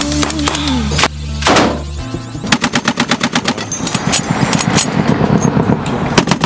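Music ends in the first two seconds with a couple of single shots, then rapid automatic gunfire starts about two and a half seconds in: a fast, even run of shots, several a second, that keeps going.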